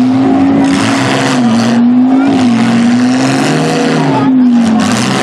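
Demolition derby cars' engines running hard. One engine holds a loud, steady high-revving drone that dips slightly in pitch now and then, over a wash of engine noise.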